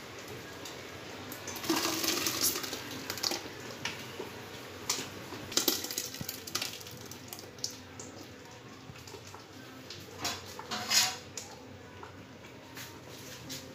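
Thick cooked lentil mash poured and scraped from a metal bowl into a large steel pot: sloshing, with scattered knocks of the metal vessels against each other.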